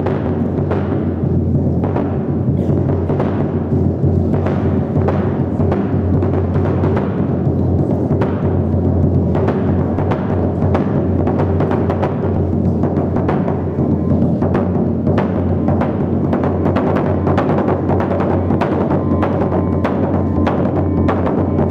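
A very large rope-tuned skin drum beaten with sticks in a steady rhythm that grows denser in the second half, over a low sustained keyboard accompaniment.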